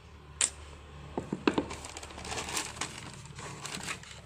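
Tissue paper rustling and crinkling in a cardboard shoebox as a canvas sneaker is handled over it, with a few sharp taps and clicks, the loudest about a second and a half in.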